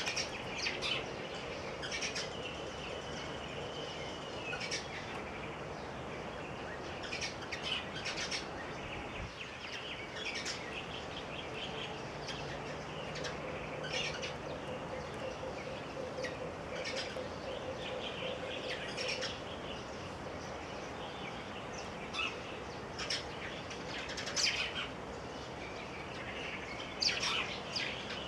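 Short, high chirps scattered irregularly throughout, over steady low background noise.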